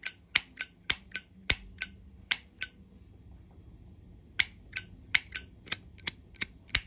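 Zippo lighter lid being flicked open and snapped shut over and over, each a sharp metallic click with a high ringing ping, about three a second. It stops for about a second and a half in the middle, then starts again.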